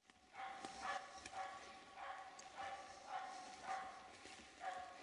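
Finnish Spitz barking in a steady, rhythmic run of short, high barks, about two a second: a bark-pointer's baying at game it has found.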